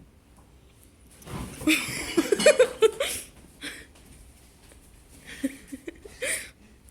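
Sudden loud bursts of a person's voice without words, starting about a second in and again shortly before the end.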